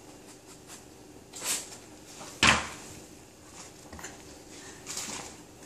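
A single loud thump about two and a half seconds in, with fainter knocks and rustles before and after it.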